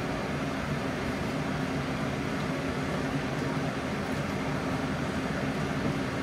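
Steady fan-like hum with an even hiss over it, from the induction cooktop and the pans cooking on it, as greens are stirred in a wok.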